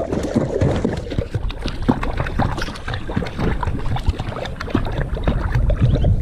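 Continuous, irregular splashing and sloshing of water as a dog paddles in a plastic kiddie pool, heard close up at the waterline.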